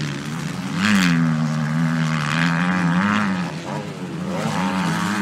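Motocross motorcycle engines revving hard on the track, pitch climbing, holding and dropping with throttle and gear changes, loudest about a second in, with more bikes overlapping.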